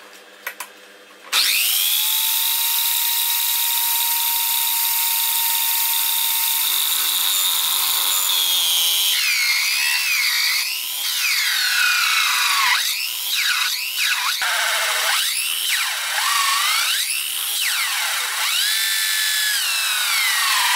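An electric drill in a wooden drill-press stand spins up about a second in, driving a large hole saw. From about nine seconds its whine dips and recovers again and again as the saw teeth cut into a pine board under load.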